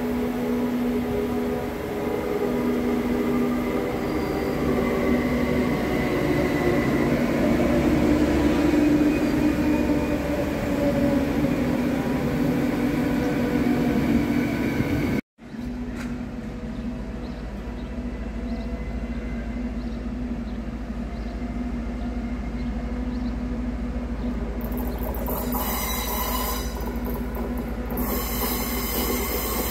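Slovenian Railways class 610 Stadler FLIRT electric multiple unit pulling in, its traction motors whining in several tones that fall slowly in pitch as it slows. After a sudden cut halfway through, a red electric multiple unit rolls past with a steady low rumble, and a high-pitched wheel squeal joins in about 10 seconds later.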